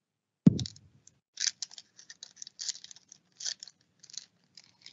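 Foil wrapper of a hockey card pack being torn and peeled open by hand: an irregular run of short crinkling rustles. A short low bump about half a second in.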